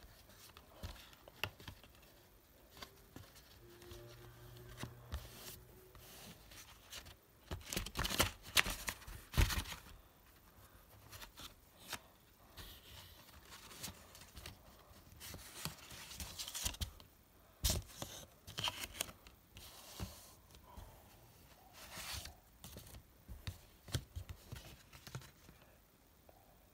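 Cardboard and paper packaging of a Mac OS X Snow Leopard retail box being opened by hand: scattered rustling, scraping and tearing, with the loudest run of tearing about eight to nine and a half seconds in and a sharp snap of the cardboard near eighteen seconds.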